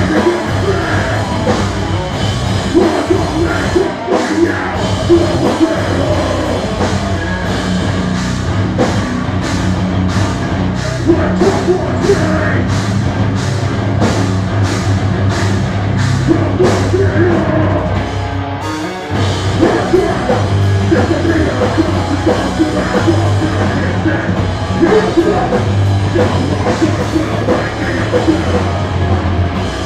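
Live rock band playing loud, with guitars, drums and a singer's vocals. Through the middle, cymbal crashes land about twice a second; just past halfway the band briefly drops out, then comes straight back in.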